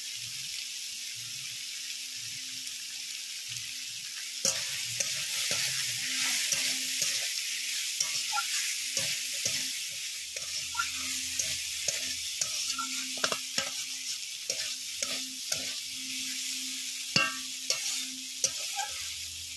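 Chopped taro stolons sizzling in hot oil in a kadai. About four seconds in, the sizzle grows louder as a metal spatula starts stirring, scraping and clicking against the pan.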